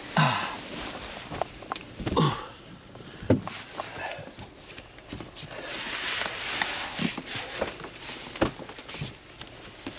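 Hands knocking, pushing and rubbing at a car's stuck rear side window that won't open, with several sharp knocks and thumps and a couple of short grunts near the start and about two seconds in.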